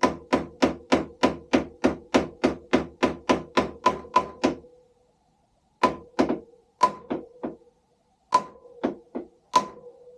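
A hammer tapping repeatedly on a tool pressed into a tight brake-reservoir cap screw to shock it loose, each blow leaving a short metallic ring. A quick, even run of about fifteen blows, a pause of about a second, then slower, uneven blows.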